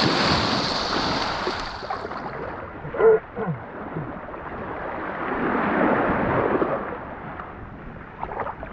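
Sea water and wind rushing on the camera's microphone. The sound turns muffled about two seconds in. A brief louder sound comes about three seconds in.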